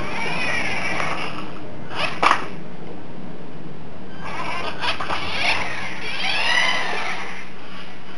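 Tiny electric motor and gearbox of a 1/32-scale Mitsuwa RC mini monster truck whining as it drives, the pitch rising and falling as it speeds up and slows. Sharp knocks about two seconds in and again near five seconds.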